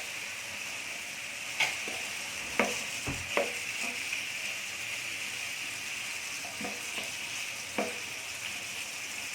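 Fish, chicken and chopped peppers sizzling steadily in hot oil in a pan, with several clicks and scrapes from a utensil stirring them.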